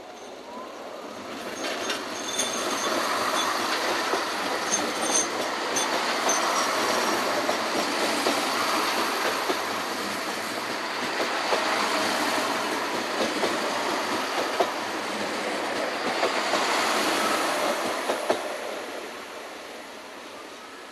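Three coupled Siemens Desiro diesel multiple units passing close by: the noise of engines and wheels builds over about two seconds, holds loud with the clatter of wheels over rail joints and a few brief high wheel squeals in the first seconds, then fades as the train goes by.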